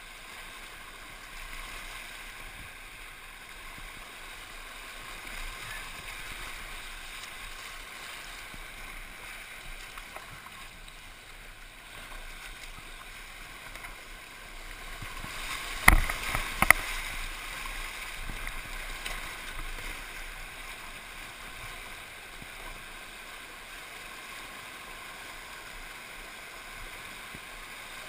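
Steady rush and hiss of flood-swollen whitewater, heard from a camera mounted on a kayak running the rapids. About halfway through, two or three sharp knocks, the loudest sounds, close together.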